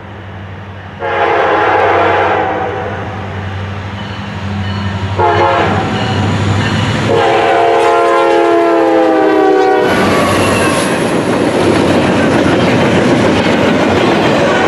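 Norfolk Southern diesel freight locomotives sound their multi-note air horn: a short blast about a second in, then a longer one from about five seconds that shifts lower in pitch partway through as the lead unit passes, over a low diesel engine drone. From about ten seconds the locomotives and double-stack container cars roll by loudly, with wheels clattering on the rails.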